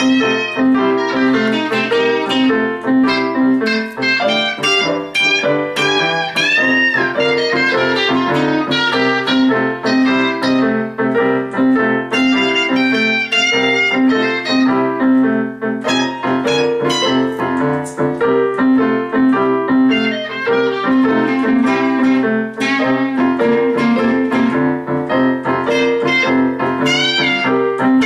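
Electric guitar playing a blues in C: a continuous run of single notes and chords, with some notes bent.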